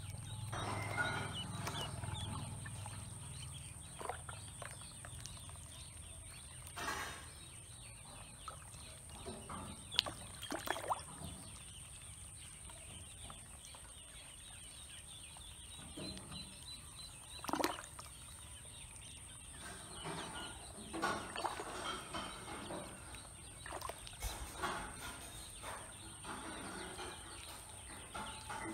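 A group of ducklings peeping while swimming and dabbling in a plastic basin of water, with a few sharp splashes or knocks.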